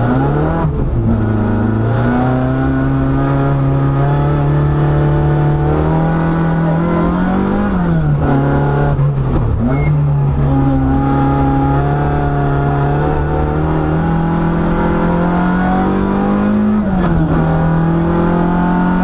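Citroën AX GTI rally car's engine heard from inside the cabin, driven hard. The revs climb through quick gear changes at the start, then stay high, dropping and climbing again about eight seconds in and once more near the end.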